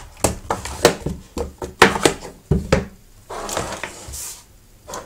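A small plastic dashcam and its suction-cup car mount handled and set down on a wooden tabletop: a quick run of clicks and knocks, then a brief rustling scrape across the table about three and a half seconds in, and one last knock near the end.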